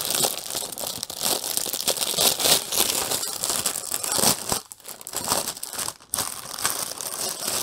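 Clear plastic bags crinkling as a packet of small bagged diamond painting drills is handled, with brief pauses about four and a half and six seconds in.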